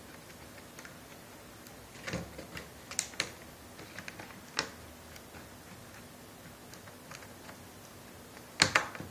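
Scattered light clicks and knocks of a laptop's LCD panel and plastic lid being handled and set into place, with the loudest cluster of knocks near the end.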